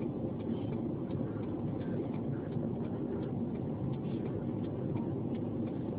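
Steady low rumble of a stopped car's engine heard from inside the cabin, with a regular light ticking about three times a second.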